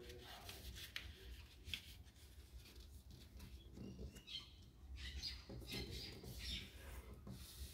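Faint rustling and scratching of a folded paper strip as fingers crease it and slide along the fold against a table, with a few soft clicks.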